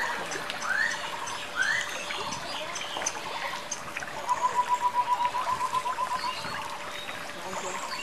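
Water trickling and splashing in a tiered garden fountain, with bird calls over it: three short rising chirps in the first two seconds, then a rapid run of repeated calls for about two seconds midway.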